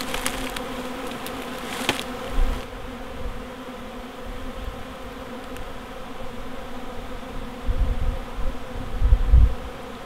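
A fresh swarm of honey bees buzzing in a steady drone, the bees still agitated as they settle onto a swarm box. A few sharp clicks come in the first two seconds, and low rumbles come near the end.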